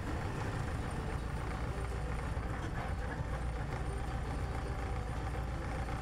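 CubCrafters Carbon Cub's engine and propeller running during the landing rollout on the runway, heard from inside the cockpit as a steady low drone.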